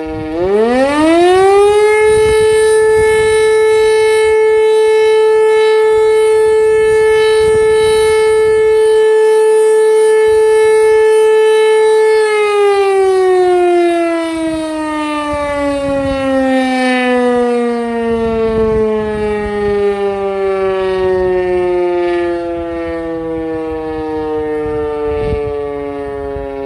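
E57 electromechanical civil-defence siren sounding a test alarm. It winds up over about two seconds to a steady loud tone, holds it for about ten seconds, then is switched off and its pitch slowly sinks as the rotor winds down.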